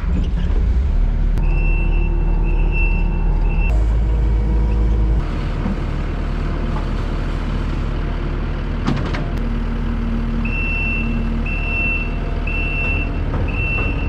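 Kubota compact track loader's diesel engine running steadily under work, with its back-up alarm beeping about once a second: three beeps near the start and four more near the end.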